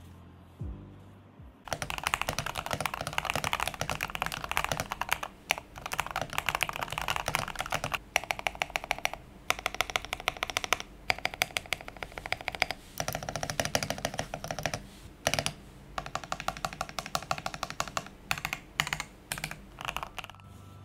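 Typing on a Gamakay K87 mechanical keyboard built with lubed and filmed Gateron Yellow linear switches, an acrylic plate in a sandwich mount, modded stabilizers, PBT keycaps, a two-layer tape mod and case foam. Keystrokes start about two seconds in and come in fast runs broken by short pauses.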